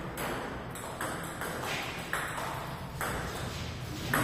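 Table tennis rally: the plastic ball clicks sharply off the rubber bats and bounces on a STAG table, about two hits a second.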